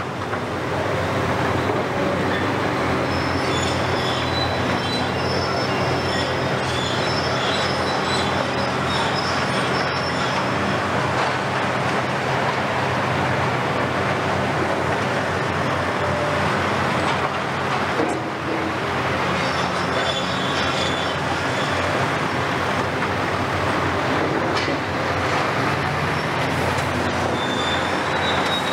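Diesel engines of demolition excavators and passing lorries running steadily, with high metallic squealing on and off.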